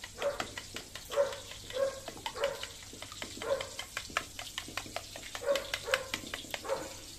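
A dog barking repeatedly, about once a second, over the quick clicking of a metal spoon beating eggs in a bowl.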